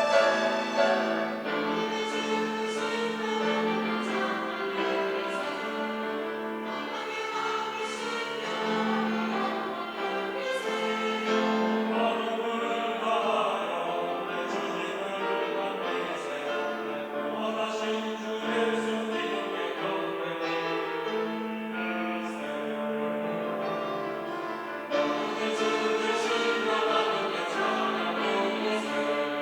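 Church choir singing a Sunday anthem in long, held phrases.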